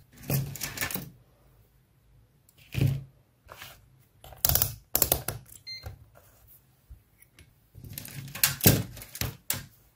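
Handling noise of test leads and wires being fitted to a power supply's output terminals and a test bulb: a scattered series of short clicks and clatters with quiet gaps between them.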